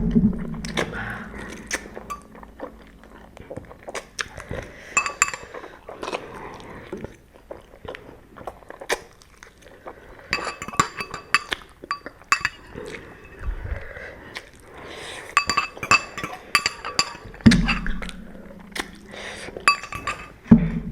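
Eating utensils clinking and scraping against a noodle bowl, with short ringing clinks and scattered clicks throughout. There is a heavy knock right at the start and another about 17 seconds in.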